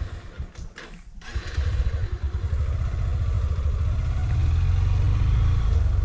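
Motorcycle engine running at low revs, its low pulsing note growing louder about a second in as the bike pulls away, then running steadily as it rides at low speed along a dirt track.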